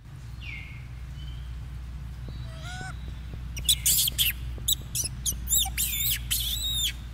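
Young macaque squealing: a few faint gliding squeaks, then from about halfway a rapid series of loud, high-pitched calls, each one rising and falling in an arch. A steady low rumble runs underneath.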